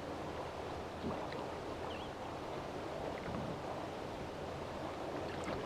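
Steady wash of water and wind around a small kayak on open water, with a few faint light ticks.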